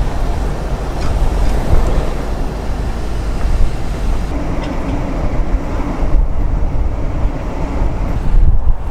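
Strong wind buffeting the microphone in a snowstorm, mixed with road traffic noise; a vehicle's steady low hum joins about four seconds in for a couple of seconds.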